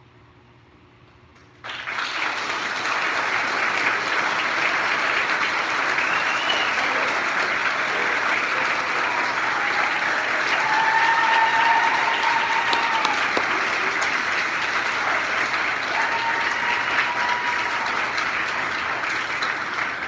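Audience applause that breaks out suddenly about two seconds in and goes on steadily, with a few cheers over it.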